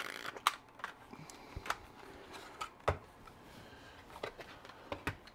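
Scattered sharp clicks and light knocks, about a dozen at uneven intervals, as the Dyson vacuum and its Makita battery adapter are handled. The vacuum motor is not running.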